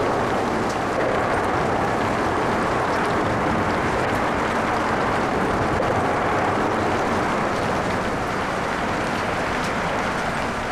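Steady rain mixed with the hiss of light traffic on wet roads, with scattered faint raindrop ticks.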